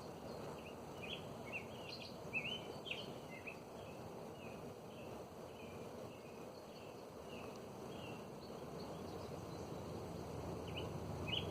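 Small birds chirping, with quick runs of short, high chirps in the first few seconds and again near the end, over steady outdoor background noise.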